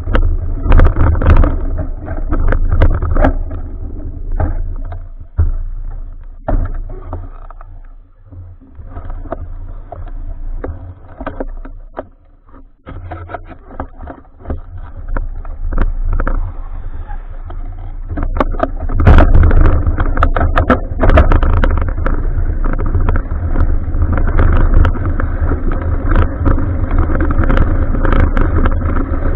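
Bicycle ride recorded on a TEC BEAN action camera: heavy wind rumble on the microphone with road noise and frequent sharp knocks and rattles from bumps. It grows louder and denser about two-thirds of the way through.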